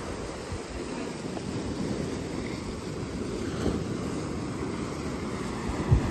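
Sea surf breaking on a rocky shore, with wind rumbling on the microphone and a stronger gust near the end.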